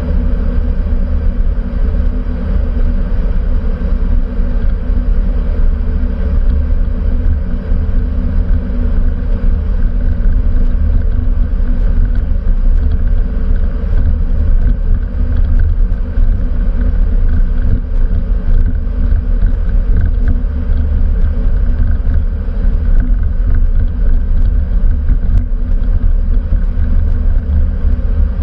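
Steady in-flight cockpit noise of a Cessna Citation CJ4 business jet: a loud, even rumble of airflow and its twin turbofan engines heard from inside the cabin.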